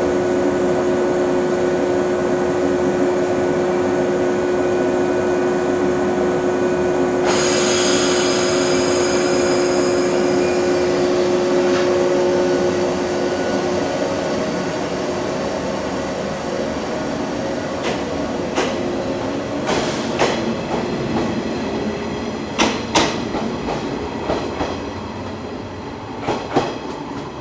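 JR West 115-series electric train pulling out of a station: a steady hum at first, then the train running off, its sound fading, with the wheels clicking over rail joints in the second half.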